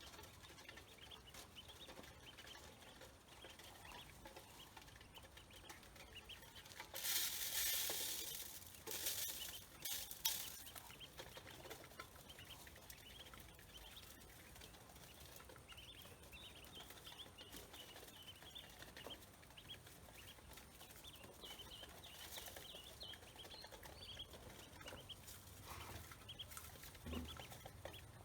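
Ducklings peeping: many short, high cheeps, faint. Two louder bursts of noise come about seven and nine seconds in.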